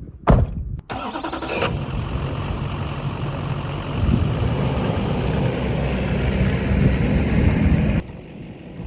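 A sharp knock like a truck door shutting, then the truck's engine starts and runs steadily, cutting off abruptly about eight seconds in.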